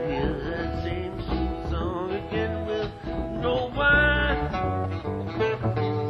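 Instrumental passage of an acoustic guitar song: picked and strummed guitar with a melody line that wavers in pitch above it.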